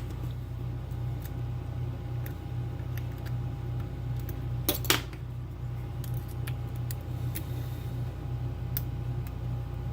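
Faint, irregular metallic ticks and scrapes of a hook pick and tension wrench working the pins of a Schlage Everest lock cylinder, with a louder short metallic clatter about five seconds in. A steady low hum runs underneath.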